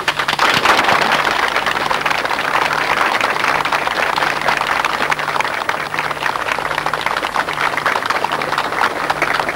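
A crowd applauding, breaking out at the start and continuing steadily.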